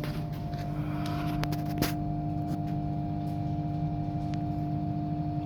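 Electric blower fan of a fan-assisted stove running with a steady hum, with a few sharp clicks a second or two in.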